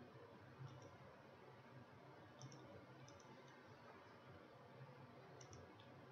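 Near silence with faint computer mouse clicks, a handful spread through, several in quick pairs.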